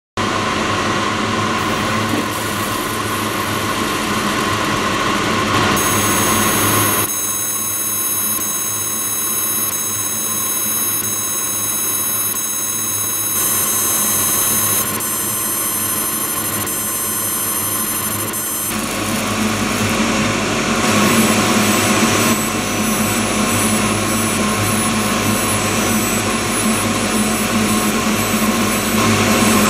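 Steady mechanical drone of an industrial pulsed UV laser machining station at work on carbon fibre reinforced polymer, with a cluster of high-pitched whines that switch in about seven seconds in and cut out abruptly a little past the halfway point, after which the low hum is stronger.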